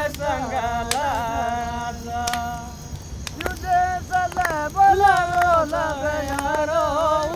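Several voices singing a slow tune together, with long held notes and a few sharp clicks.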